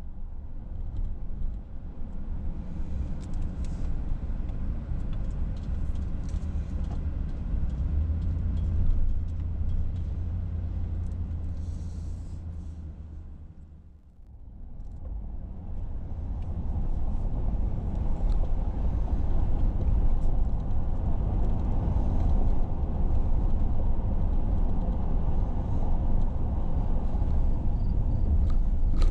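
Steady road and engine rumble inside a moving car's cabin, fading down and back up about halfway through.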